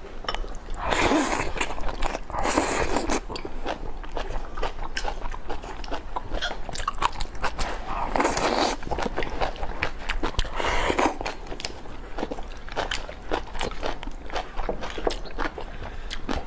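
Mukbang eating sounds: chewing and crunching with many small clicks, and four louder rushes of noise about half a second long.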